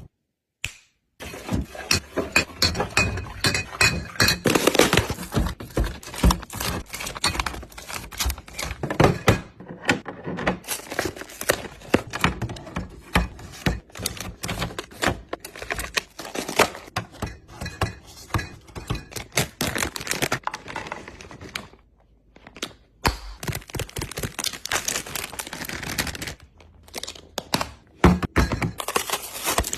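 Containers and food items being handled and set down while a fridge is organized: a dense, irregular run of knocks, clicks and clatters. There is a short silent gap just after the start and a brief lull about two-thirds through.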